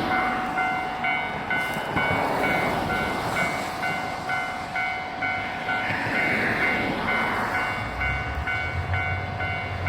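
Japanese level-crossing warning bell ringing, a pulsed two-tone ding about three times a second, while a train passes with a rumbling noise; a low engine drone comes in near the end.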